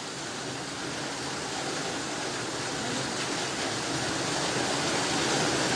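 Fast-flowing floodwater rushing down a street in a steady rush that slowly grows louder.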